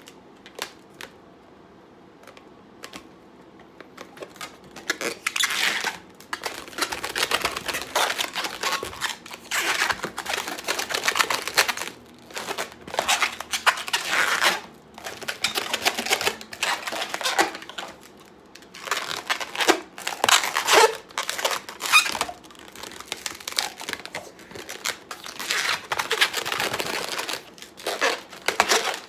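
Long latex modelling balloons rubbing and squeaking against each other and against the hands as they are twisted and bent into shape, in irregular bursts with short pauses.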